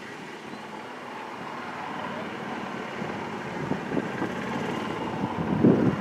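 Steady wind rushing on the microphone, slowly growing louder, with a few short low gusts near the end.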